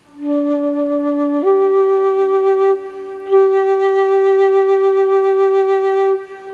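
Solo flute playing slow, long-held notes: a low note, a step up about a second and a half in, then a long sustained note after a brief dip near three seconds.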